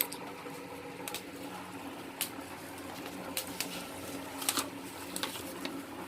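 Scattered light clicks and taps of objects being handled, roughly one a second, over a faint steady hum.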